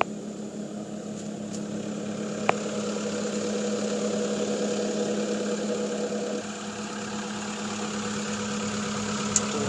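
Caterpillar 299D compact track loader's diesel engine idling steadily, with a sharp click about two and a half seconds in.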